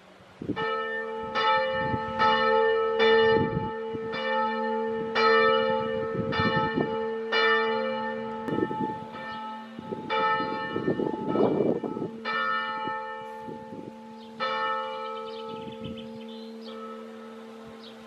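Church bells ringing, about one stroke a second over a steady ringing hum, the strokes thinning out and fading toward the end.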